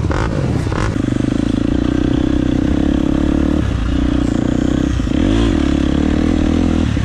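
Dirt bike engine running under throttle at a steady pitch, with brief throttle roll-offs twice, the second with a quick dip and rise in revs.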